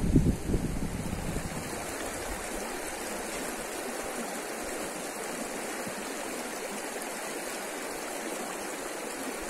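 River water rushing steadily, with wind buffeting the microphone for the first couple of seconds.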